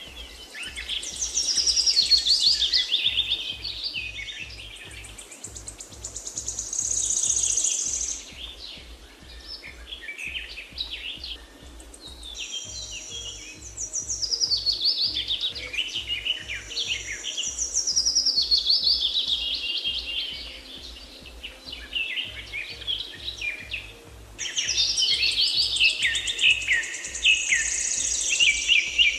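Songbirds singing in repeated bursts of fast chirps and trills, with a soft, regular low pulsing underneath.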